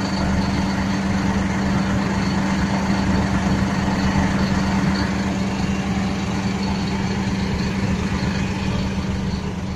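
Volvo FM 440 truck's D13 inline-six diesel engine running at a steady, unchanging speed with the accelerator pedal floored and the PTO engaged. The engine is held at about 1000 rpm by the programmed PTO engine speed limit, so it does not rev up.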